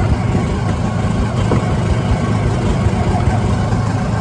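Go-kart engine running steadily at driving speed, a continuous low drone.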